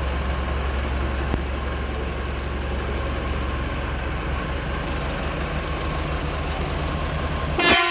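Eicher BS4 diesel engine idling steadily, then a short, loud air-horn blast near the end.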